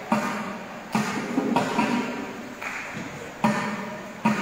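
Mridangam being played: a run of sharp hand strokes on the drum heads, each ringing briefly with a pitched tone, in an uneven rhythm with a few louder strokes standing out.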